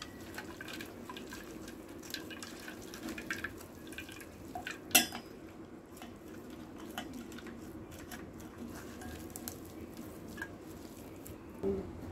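Wet ground coconut squeezed by hand in a steel mesh strainer, coconut milk dripping through, with soft scattered squelches and small clicks. A single sharp knock comes about five seconds in.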